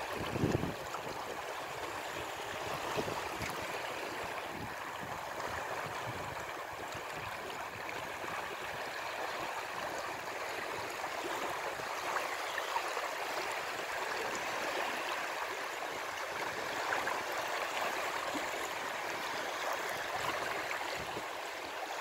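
Small waves of the Gulf of Finland lapping and washing over a shallow, boulder-strewn shore, a steady hiss of moving water.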